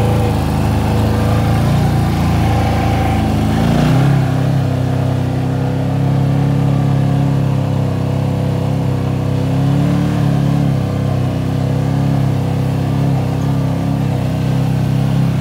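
Off-road vehicle engine running while driving through swamp mud. Its pitch climbs about four seconds in as it speeds up, then holds steady with a small rise near ten seconds.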